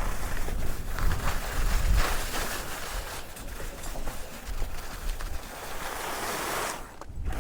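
Skis hissing and scraping through heavy snow, with wind buffeting the camera microphone in low rumbling gusts. The sound drops away briefly near the end.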